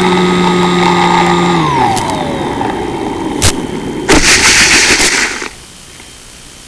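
Mini Skywalker's electric motor and propeller running at a steady pitch, then winding down as the throttle is cut about a second and a half in, leaving air rushing past as the plane glides. A click follows, then a loud scraping rush lasting about a second and a half as the plane belly-lands and slides through the grass, ending suddenly with only a steady hiss left.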